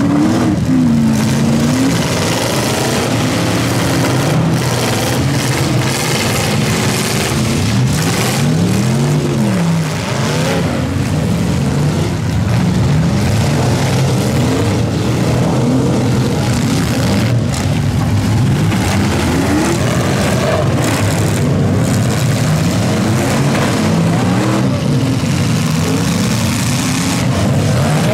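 Several demolition derby pickup trucks' engines revving up and down over one another, with scattered bangs of the trucks crashing into each other.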